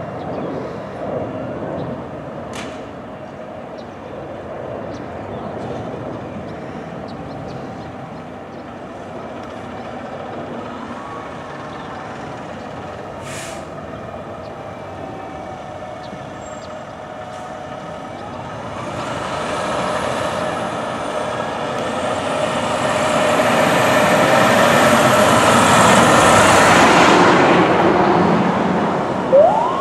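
Diesel fire engine running as it leaves the station, with short air-brake hisses about 3 and 13 seconds in. From about the middle a louder roar swells, peaks, then eases. A siren starts to wind up right at the end.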